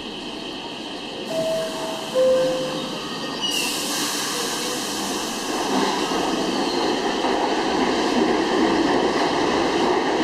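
R62-series New York City subway train at a station: a two-note falling door chime sounds, the doors close, and the train pulls out, its running noise growing steadily as it picks up speed.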